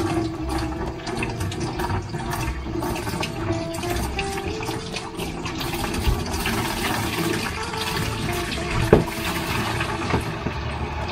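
Backed-up kitchen sink water draining out of a loosened brass P-trap into a plastic bucket, rising to a steady pour from the open tailpiece once the trap comes off. A single sharp knock about nine seconds in.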